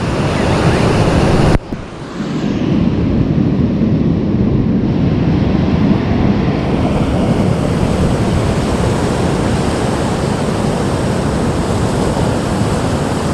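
Steady rush of wind on the microphone mixed with breaking surf, with a sudden short break about a second and a half in before the rush carries on.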